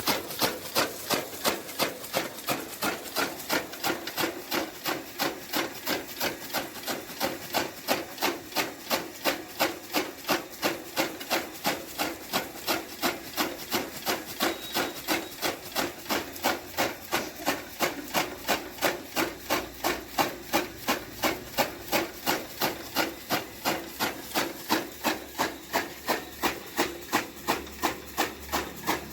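Electric chaff cutter, driven by a 1 hp motor, chopping fodder: an even rhythm of sharp, scraping cutting strokes, about two and a half a second.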